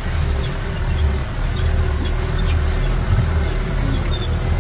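Off-road 4x4 jeep engine running at low speed under load through deep mud: a steady low rumble, with a few faint clicks.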